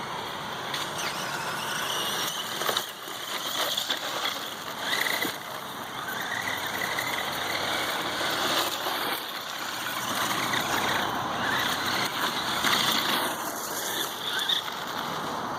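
Redcat Volcano RC monster truck running on its freshly installed gears: a steady gear-and-motor whine over a rough mechanical noise, its pitch rising and falling as the throttle changes.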